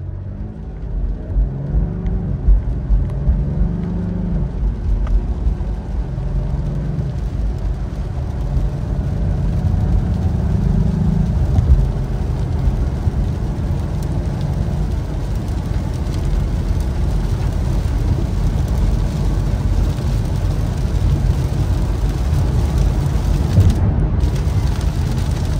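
Cadillac ATS-V's twin-turbo V6 heard from inside the cabin, exhaust muffler valves closed. It pulls hard through several upshifts in the first dozen seconds, its note rising and dropping back with each shift. After that it settles to highway cruising, where a steady low road and tyre rumble covers the engine.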